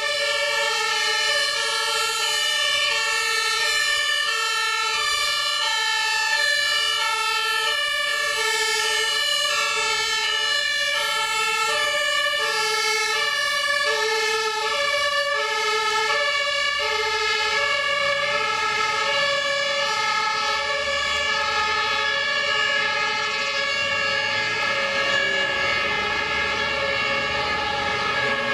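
German fire engines' two-tone sirens (Martinhorn) alternating high and low over and over, more than one siren sounding at once and out of step. A truck's engine rumble joins in about halfway through as a fire engine drives past.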